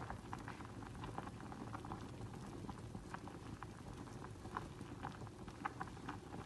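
Macaroni pasta boiling in water in a stainless steel saucepan: a quiet, steady bubbling with frequent small irregular pops.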